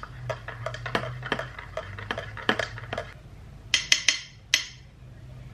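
Metal spoon stirring hot chocolate in a ceramic mug, clinking repeatedly against the inside. About four seconds in come three or four louder, ringing clinks.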